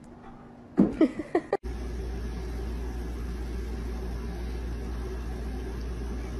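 A cat gives a few short, loud cries that slide in pitch, about a second in. After that comes a steady low rumbling hum.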